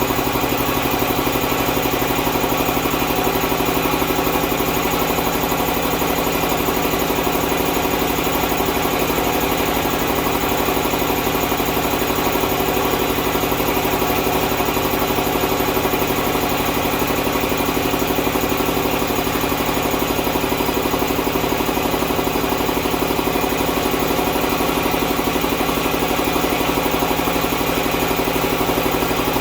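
Champion air compressor running steadily on three-phase power from a phase converter, its piston pump filling the receiver tank toward cutoff pressure.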